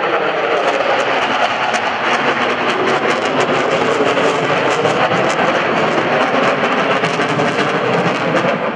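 Twin-engine F/A-18 fighter jet passing overhead, its engines making a loud, steady jet noise with a fine crackle running through it.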